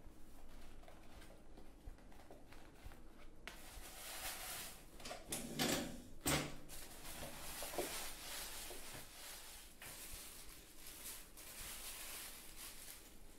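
Rustling, shuffling noise with two sharp knocks a little before halfway through.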